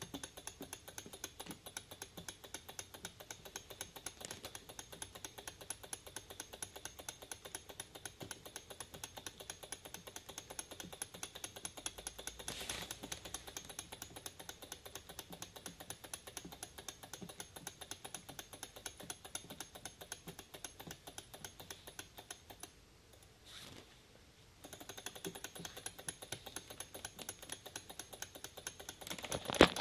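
Acrylic Stirling engine tank model running, its flywheel, crank linkage and drive clicking rapidly and evenly. The clicking fades briefly about three quarters of the way through, then picks up again.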